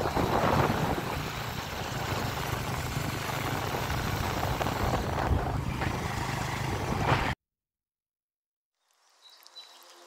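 Motorbike engine running with wind rushing over the microphone while riding, cut off abruptly about seven seconds in. After a moment of silence, soft music fades in near the end.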